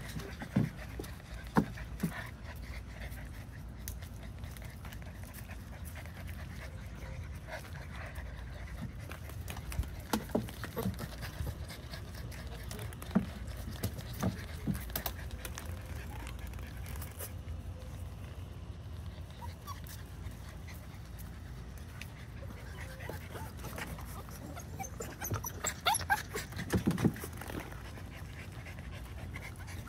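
Young white retriever puppies panting as they play, with scattered short knocks and a few brief whines and yips, thickest near the end.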